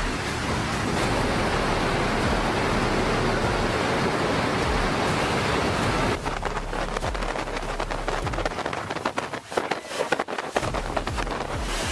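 Hurricane wind and driving rain: a dense, steady rush for the first half, then an abrupt change about six seconds in to a gustier, uneven rush with crackling that rises and falls sharply.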